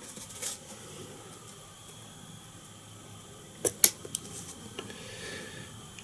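Quiet handling sounds at a fly-tying vise: two sharp small clicks close together a little past the middle and a few lighter ticks over low room noise, as a pheasant-feather fibre is torn off for a leg.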